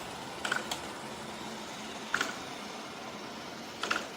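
A robot vacuum running with a steady whir, with short sharp clicks, each with a brief higher chirp, about three times.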